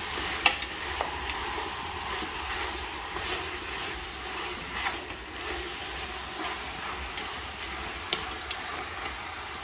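Chicken pieces being stir-fried with chopsticks in a large aluminium pot. The sticks give a few sharp clicks against the pot over a steady hiss.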